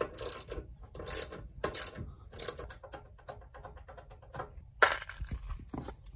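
Ratchet wrench with a 10 mm socket clicking as it is worked back and forth, loosening a seat-base bolt. A few louder strokes come in the first two and a half seconds, then quicker light ticking, and a single sharp click about five seconds in.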